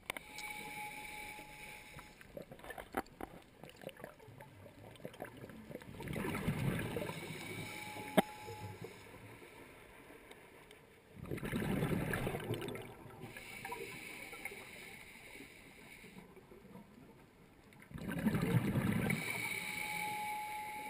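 Scuba diver breathing through a regulator, heard through an underwater camera housing: three loud bursts of exhaled bubbles about six seconds apart, with a quieter hiss between them.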